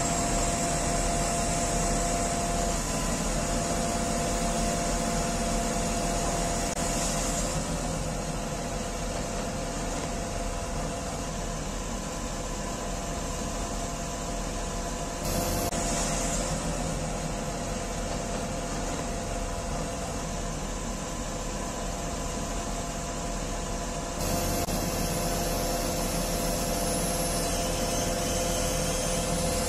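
XCMG QY25K5A truck crane's diesel engine and hydraulics running steadily as the telescopic boom extends, a steady whine over the engine noise, stepping up in level about 24 seconds in.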